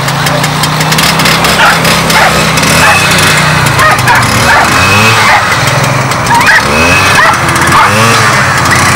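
The small engine of a lure-coursing machine running steadily, with a dog barking and yelping excitedly over it again and again.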